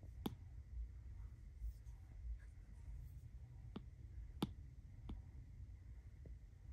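Stylus tip tapping on an iPad's glass screen: about five faint, sharp taps, irregularly spaced, the loudest a little over four seconds in.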